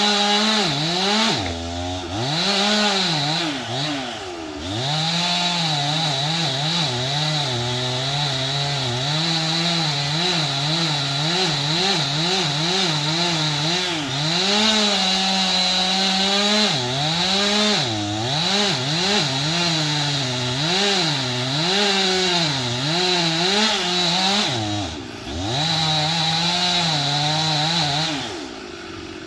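Stihl two-stroke chainsaw cutting rain tree wood at high revs. The engine pitch dips and recovers again and again as the chain loads up in the cut. Near the end it drops back to a low idle.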